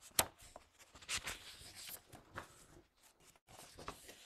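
Soft rustling of paper sheets being handled, with a few sharp clicks, the strongest just after the start.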